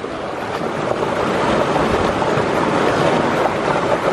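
Steady rushing of a fast-flowing mountain stream.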